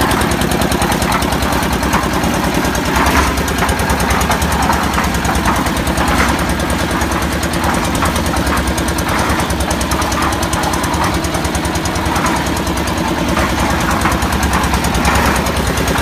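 Engine-driven concrete mixer running: its small stationary engine chugs fast and steadily, and a clatter comes about every three seconds as the drum turns.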